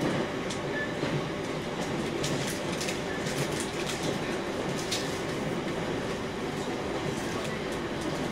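JR East E721-0 series electric train running steadily on the rails, heard from inside the car: an even rumble of wheels on track with scattered light clicks.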